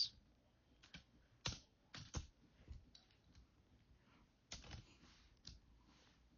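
Plastic Transformers toy parts clicking and snapping as a figure is pulled apart by hand: scattered sharp clicks with pauses between, a few louder ones among them.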